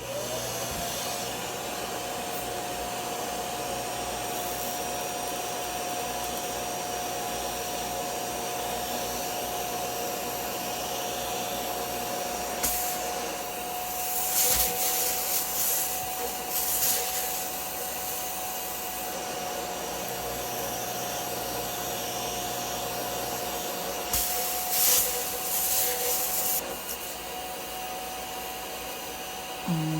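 Bissell Little Green Max Pet portable carpet cleaner switching on, its motor whine rising quickly to a steady pitch over a steady rushing of air. It runs on with two louder stretches of high hissing, one in the middle and one later.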